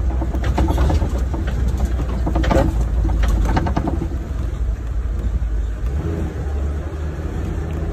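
Safari truck's engine running as the vehicle drives along, a steady low rumble heard from on board.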